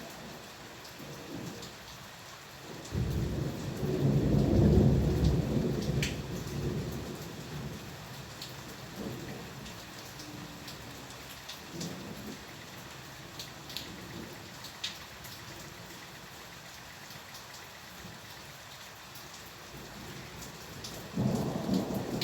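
Steady rain, with a roll of thunder rumbling in about three seconds in, loudest a couple of seconds later and dying away over several seconds. Another thunder rumble starts just before the end, and a few sharp drop ticks stand out over the rain.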